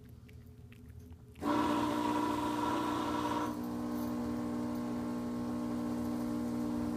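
A few faint clicks of a cat chewing. Then, about a second and a half in, a loud steady drone of several held tones starts suddenly and carries on, dropping a little in level about halfway through.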